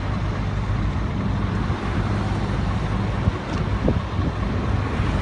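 Heavy diesel engines of excavators and a lorry running, a steady low hum with a short rising whine about four seconds in.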